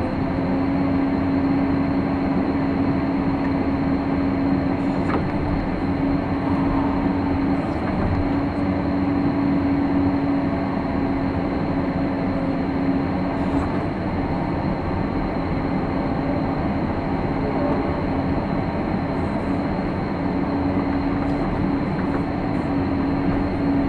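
Hydraulic excavator's diesel engine and hydraulics running steadily under working load while digging and loading, heard from inside the operator's cab as a constant drone with a steady hum.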